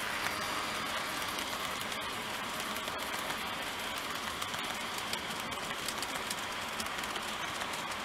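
TOMIX N-gauge C55 steam locomotive model and its passenger coaches running past close by on model track: a steady whirring rumble of wheels on the rails with many small clicks as the wheels cross the rail joints.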